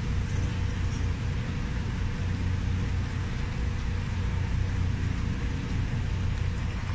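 Steady low engine rumble, heard from inside a vehicle cabin.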